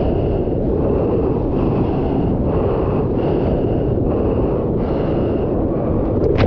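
Steady rush of churning surf water and wind noise buffeting the surfer's POV camera microphone as the board moves through whitewash, with a faint pulse about every second. A couple of sharp clicks come at the very end.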